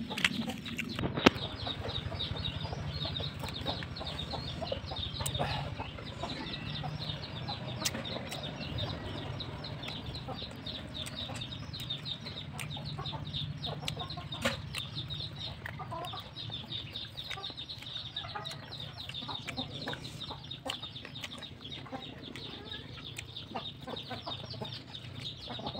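Chickens clucking and cheeping, with close-up chewing and mouth sounds of someone eating by hand, and a sharp click about a second in.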